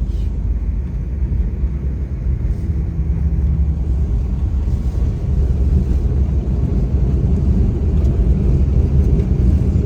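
Steady low rumble inside a passenger airliner's cabin as the jet lands and rolls down the runway, growing a little louder a few seconds in.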